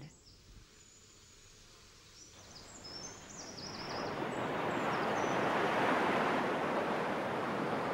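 Sea surf on a sandy beach. After a quiet start with faint bird chirps, the rush of a wave washing up the shore swells from about three seconds in and stays loud.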